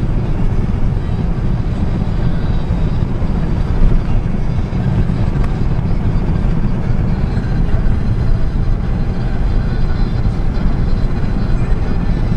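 A moving vehicle heard from inside the cab: a steady low rumble of engine and tyres on the road, even throughout.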